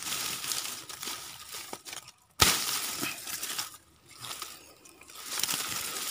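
Dry pineapple leaves and stalks rustling and crackling as they are handled and pushed through, with a sudden sharp crack about two and a half seconds in.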